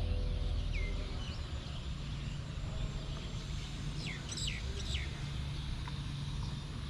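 Outdoor ambience: a few short bird chirps, with a quick cluster of them about four seconds in, over a steady low rumble.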